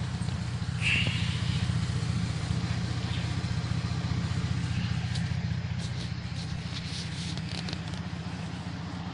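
A 2013 Chevrolet Silverado's 4.3-litre V6 is idling steadily with its muffler deleted. The exhaust comes straight out of a pipe cut off just ahead of the rear tire, giving a low, pulsing exhaust note that is loudest about a second in.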